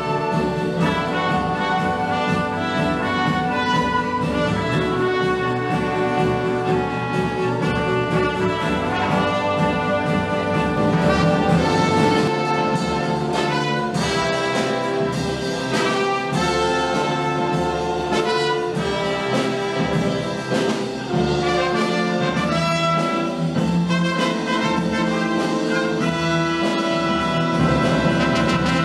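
Small orchestra playing a piece, led by its brass section, with trumpets and trombones prominent over the other instruments. The music runs on steadily with sustained notes.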